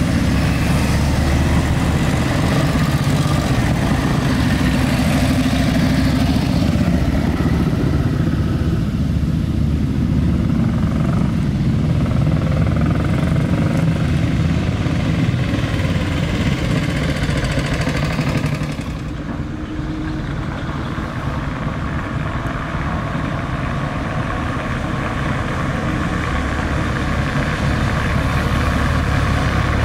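Engines of WWII-era military vehicles running as a convoy drives past, a steady low engine rumble with some rising and falling pitch as vehicles go by. The sound changes abruptly and drops a little about two-thirds of the way through.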